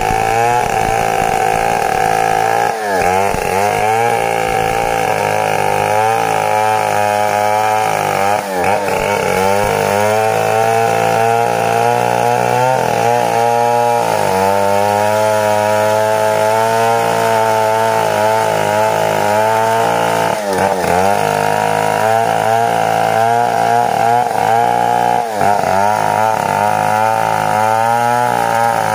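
Stihl 070 two-stroke chainsaw running at high revs while cutting into the trunk of an old bitti tree. Its pitch briefly drops and recovers about four times as the chain loads up in the wood.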